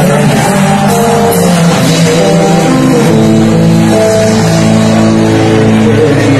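Rock band playing live through a loud PA, recorded close to full level. Held chords change about once a second over a dense wash of noise.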